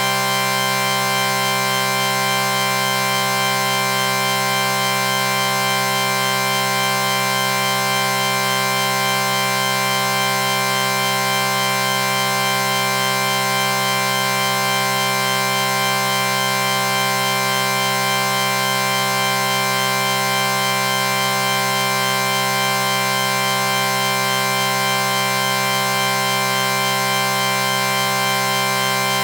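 A sustained chord sound effect: several tones held together as one steady, unchanging drone.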